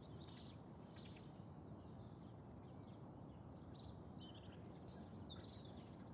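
Faint background ambience: several small birds chirping in short, scattered calls over a steady low background hum.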